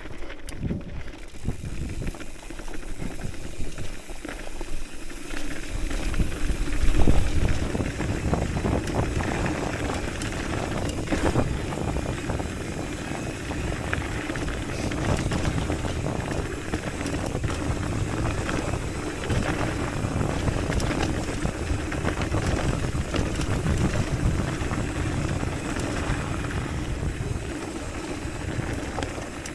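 Hardtail mountain bike ridden fast on a dirt trail: wind rushing over the microphone, with tyre noise and the bike rattling over bumps. The wind rush grows heavier about six seconds in.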